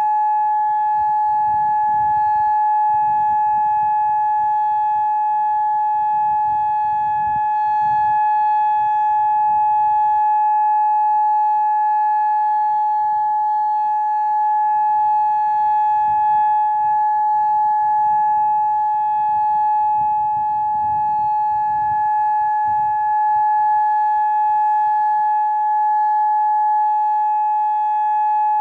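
Federal Signal Modulator outdoor warning siren sounding a steady, unchanging single-pitch tone during its scheduled test, with an uneven low rumble beneath.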